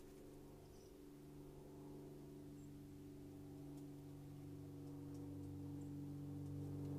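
A distant engine droning at a steady pitch, slowly growing louder, with a few faint high ticks.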